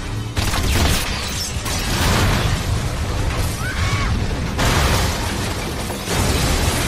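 Movie sound effects of a vehicle crash: a run of heavy impacts and an explosion over a dense rumble, loud surges coming one after another about every second or two as the vehicle blows up and flips over.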